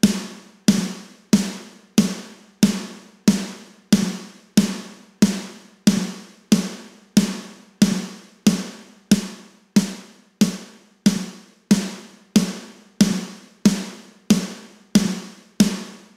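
A recorded snare drum track playing back on its own, struck evenly about three times every two seconds, each hit a sharp crack with a short decaying body. It is running through the Kiive Audio Xtressor, a Distressor-style compressor plugin, while the plugin's settings are being dialed in.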